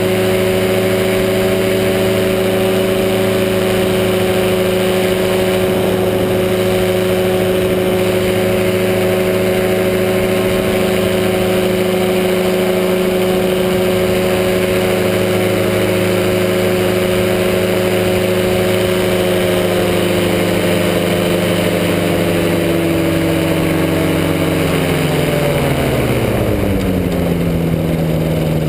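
Powered parachute's engine and propeller running steadily in flight, over a steady rush of air. Near the end the engine slows: its pitch falls over a couple of seconds and settles lower as power is eased off.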